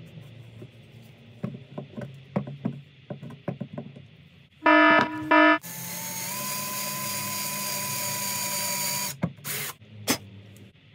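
Light knocks and handling on a clamped wooden board, then a loud buzzing tone lasting about a second. After that, an electric drill runs steadily for about three seconds as a twist bit bores into the softwood, followed by two short blips of the drill.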